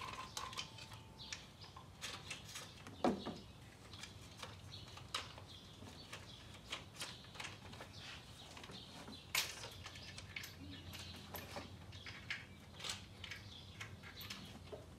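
Scattered light clicks and taps of hand tools and metal engine parts being handled while bolts are undone on an engine's timing chain module, irregular rather than rhythmic, with two sharper knocks about three seconds and nine seconds in, over a faint low hum.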